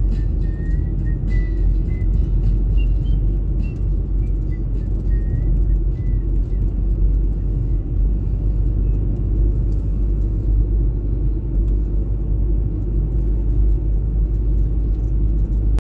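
Car driving along a road: a steady low rumble of engine and tyres, with a few short high chirps in the first few seconds. The sound cuts off suddenly near the end.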